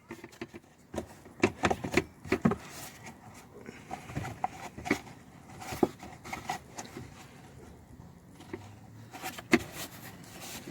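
Plastic underbody cover being wiggled loose and pushed forward: irregular plastic knocks, clicks and short scrapes.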